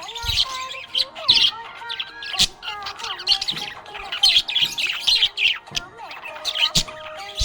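Budgerigars chirping and warbling, with many short chirps and quick rising and falling notes overlapping without a break.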